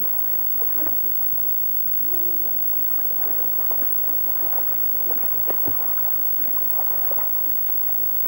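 Pool water splashing and sloshing as several swimmers move and play in it, a steady run of small irregular splashes with a few sharper ones about midway, and brief faint voices.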